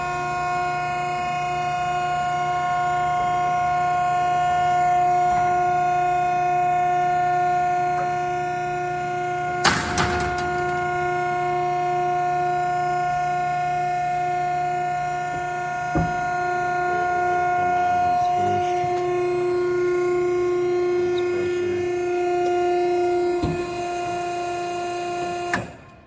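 Cardboard baler's electric-motor hydraulic pump running under load with a steady whine as the ram presses down. There is a short rushing burst about ten seconds in and a couple of single knocks later, and the whine cuts off suddenly near the end as the down stroke finishes.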